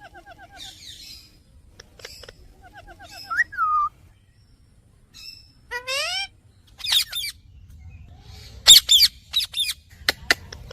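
Indian ringneck parakeet calling: short trilled chatters and a rising whistle, then a run of loud, shrill calls near the end.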